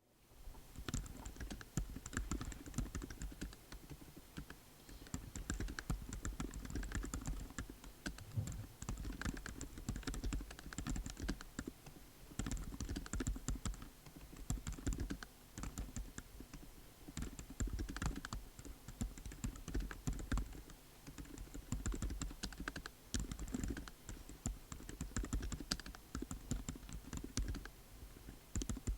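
Continuous typing on a Yamada53 AN mechanical keyboard with Outemu Silent Ocean silent switches and MelGeek MDA Dawn keycaps. The keystrokes are dense, quick and low-thudding, coming in runs separated by brief pauses.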